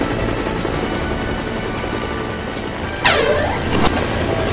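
Cartoon helicopter sound effect: a steady, rapid rotor chop. About three seconds in, a whistle-like tone slides steeply down in pitch, then a short one slides quickly back up.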